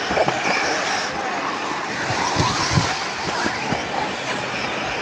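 Electric RC cars running on loose ground: a steady wash of motor and tyre noise, with a few short low thumps.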